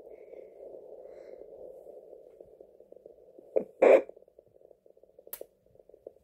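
Home fetal Doppler's small speaker giving a steady muffled whooshing as the probe moves over the belly, searching for the baby's heartbeat. A brief loud crackle comes just before four seconds in, and the whooshing thins out as the probe is lifted away.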